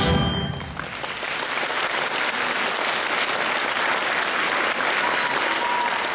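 The final chord of a xylophone with wind band stops and rings away in the hall for under a second, followed by steady audience applause.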